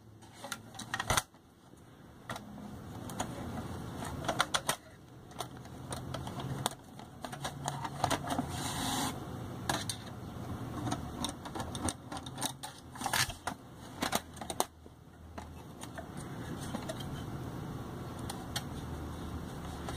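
Irregular clicks, taps and scrapes of a Pioneer DEH-1280MP car CD receiver being taken apart by hand. Its sheet-metal CD mechanism and plastic front frame are handled, and a screwdriver is worked against the chassis.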